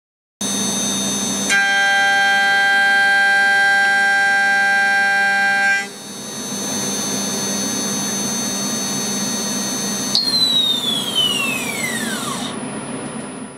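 DIY CNC milling machine's 4-pole spindle running with a steady high whine while a solid carbide end mill takes a light finishing pass along the end face of a C45 steel plate. Steady ringing tones sound while the cutter is in the steel, from just after a second in to about six seconds. About ten seconds in, the spindle winds down with a falling whine.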